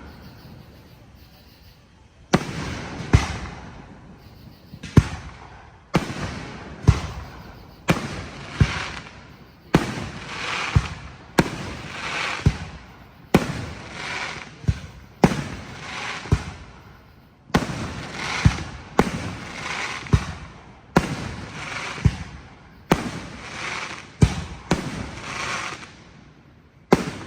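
Fireworks display: a rapid series of aerial shell bursts, each sharp bang trailed by crackling, coming one to three a second after a short lull at the start.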